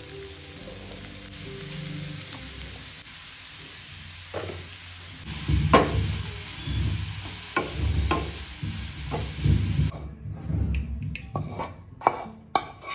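Shredded carrots sizzling in oil in a nonstick frying pan, stirred with a wooden spatula in irregular scraping strokes from about four seconds in. The sizzle cuts off about ten seconds in, followed by a few sharper knocks and scrapes as the spatula pushes the carrots from the pan into a steel bowl.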